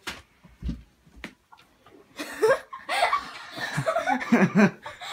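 Girls laughing and shrieking, starting about two seconds in, after a few light knocks and a soft thump.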